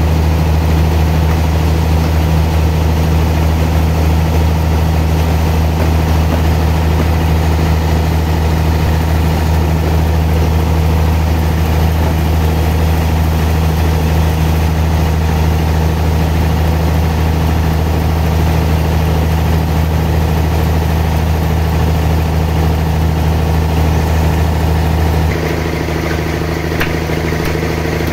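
Sawmill machinery running with a steady low drone. About 25 seconds in, the low hum drops off and the pitch changes, and it carries on steadily.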